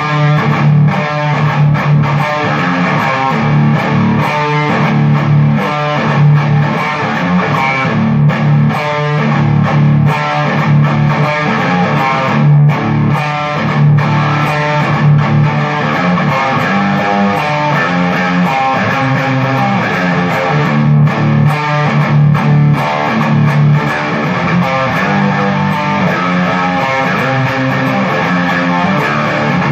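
Schecter Strat-style electric guitar played through a Vox MV50 Rock mini amp and speaker cabinet: rock riffs with a heavy low end, broken by short stops between phrases. Heard through a phone's microphone.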